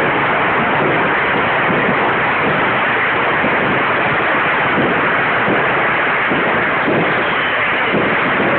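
Large falla bonfire burning, a steady, loud rushing noise with faint crackle.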